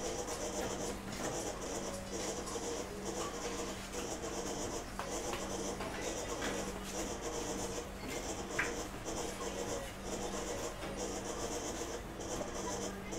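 Electric meat slicer running with a steady hum, its spinning blade scraping through cured meat in repeated passes of the carriage, about one a second. A single short sharp click comes about eight and a half seconds in.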